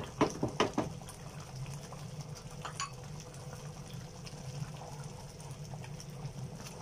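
Thick bean-and-tomato gravy bubbling at a boil in a pan while the beans are pressed and stirred with a masher, with a few knocks of the utensil against the pan in the first second. A low steady hum runs underneath.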